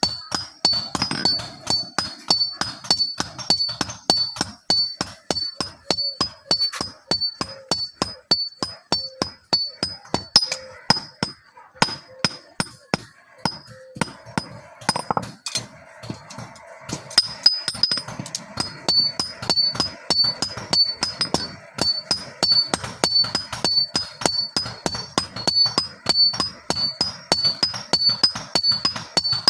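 Blacksmith's hammer striking metal on an anvil in a fast, steady rhythm of about four blows a second, each blow ringing bright and high. The blows thin out briefly about halfway through, then resume.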